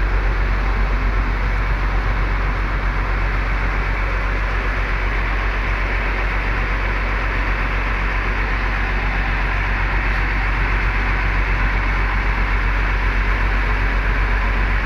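Bus diesel engine idling steadily: a constant low drone with a wide, even noise over it.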